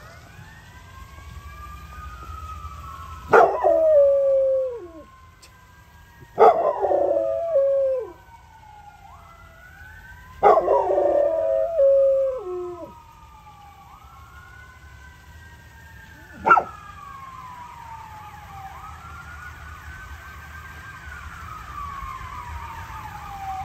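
Pit bull howling along with a passing emergency siren: three long howls, each starting high and sliding down in pitch. The siren wails up and down throughout, and one short sharp sound comes about two-thirds of the way in.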